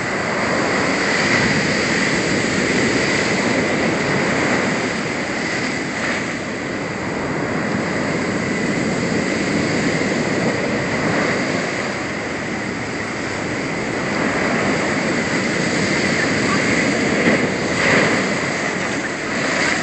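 Heavy storm surf in a hurricane: a loud, steady rush of crashing water that swells and eases over several seconds, with a brief peak near the end.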